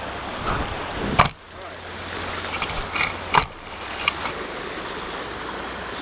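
Shallow rocky creek rushing steadily over stones, with two sharp knocks, about a second in and again past three seconds.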